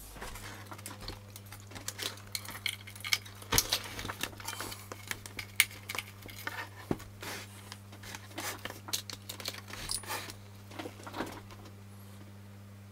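Clicks, knocks and light rattles of a vintage Tandberg Sølvsuper 12 radio amplifier's metal chassis and circuit board being handled and turned on a workbench, dying away near the end, over a steady low hum.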